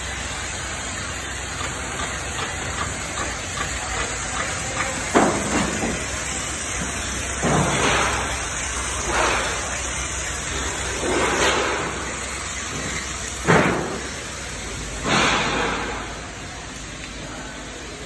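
Steel roofing-sheet production machinery running with a steady din, and from about five seconds in a short loud burst about every two seconds.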